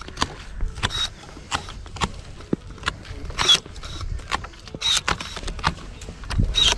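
Two electric pruning secateurs cutting grapevine canes: a quick, irregular run of sharp snips, about two to three a second, some with a brief high whir.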